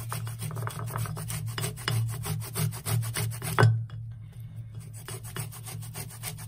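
Kinnow orange rind being rubbed against the fine teeth of a stainless steel box grater in quick repeated scraping strokes, grating off the zest. About three and a half seconds in there is a single louder knock and a brief pause before the strokes resume.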